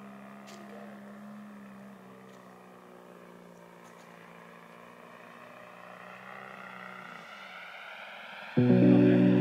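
Giant-scale RC Cessna 182's 85 cc four-stroke engine running steadily as the model comes in to land, a higher propeller whine rising in pitch over the last few seconds. Music starts suddenly near the end.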